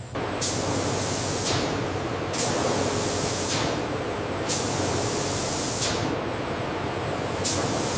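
Hissing spray in four bursts, each about a second long, over a steady rushing noise.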